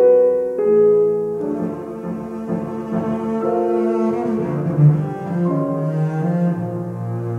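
Double bass and piano playing classical chamber music. Clear single piano-like notes open it, and from about a second and a half in the texture thickens with sustained low bass notes under the piano.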